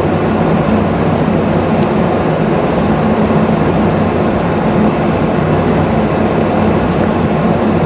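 Steady low rumbling noise with a faint low hum, unchanging in level throughout, like the engine and road noise heard inside a moving vehicle.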